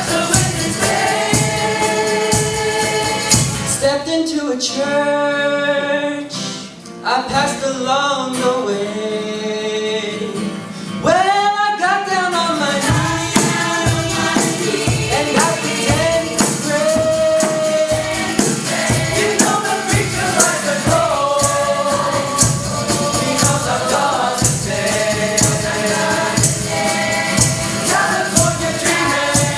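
A vocal ensemble of students sings in close harmony over accompaniment with a steady drum beat. About four seconds in the beat drops out, leaving the voices alone with sliding harmonies, and the full accompaniment comes back in about twelve seconds in.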